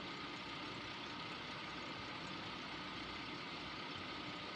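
2001 Chevy Astro van's 4.3-litre V6 idling steadily, heard faintly from inside the cabin. It is running with a newly installed cylinder 3 fuel injector, and the misfire is gone.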